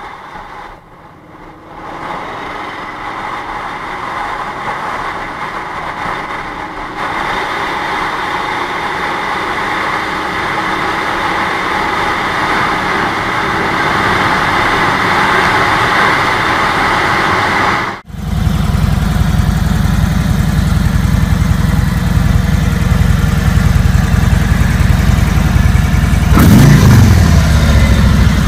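Cruiser motorcycle riding at highway speed, engine and wind rush getting steadily louder. About two-thirds in it cuts to a Harley-Davidson V-twin idling with a loud, low, lumpy beat, revved a few times near the end.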